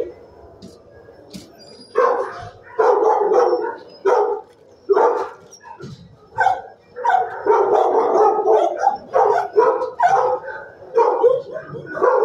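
Dog barking repeatedly in quick runs of short barks, starting about two seconds in.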